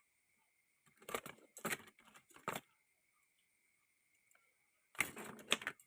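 Several short bursts of small clicks and rattles, like small objects being handled on a workbench, over a faint steady high-pitched tone.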